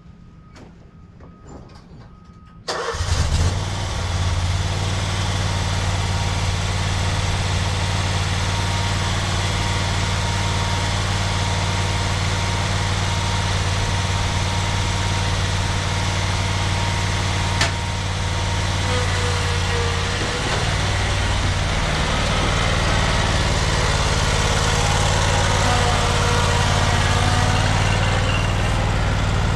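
Toro Z-Master 4000 zero-turn mower engine starting about three seconds in, catching at once, then running steadily, with one sharp click about halfway through.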